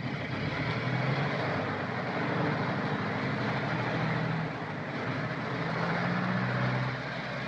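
Car engine running steadily as the car drives along, its low note shifting slightly in pitch now and then.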